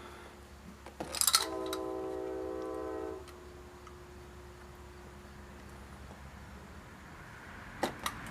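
A horn sounds one steady chord of several tones for about two seconds, preceded by a few clicks. A faint steady hum runs underneath, and two sharp clicks come near the end.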